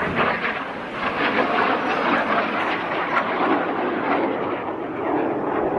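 Small airplane's engine flying past overhead: a steady, noisy drone with slight swells.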